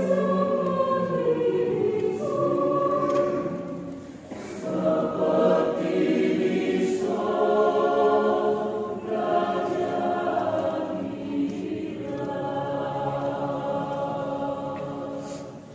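Mixed choir of men's and women's voices singing in parts, holding long phrases, with a brief pause between phrases about four seconds in.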